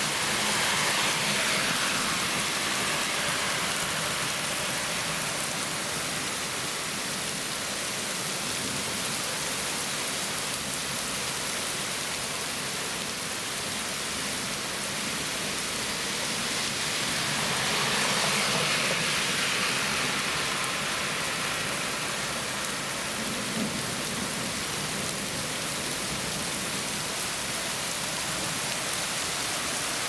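Very heavy rain pouring steadily onto pavement and lawn, an even rushing hiss that swells louder twice, about a second in and again a little past the middle.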